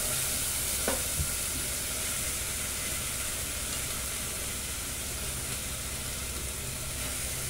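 Rinse water pouring out of an aluminium pressure cooker pot of chickpeas as they are washed and drained, a steady splashing hiss. A couple of faint metal clinks come about a second in.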